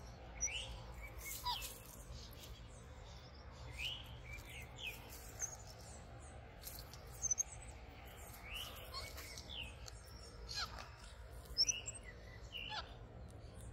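Scattered high-pitched chirps and short whistled calls from small animals, some rising and some falling, with a few faint clicks and a steady low hum underneath.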